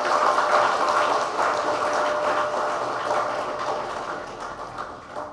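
A crowd of guests applauding: dense clapping that fades off toward the end.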